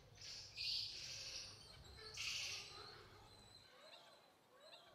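Faint outdoor ambience: two short hissing rustles, the first about a second long and the second shorter a little after two seconds in, with faint high chirping calls.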